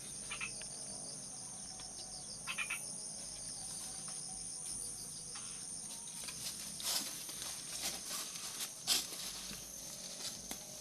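A steady chorus of crickets or similar night insects, a shrill high-pitched drone. A few short clicks or rustles come about two and a half seconds in, around seven seconds, and near nine seconds.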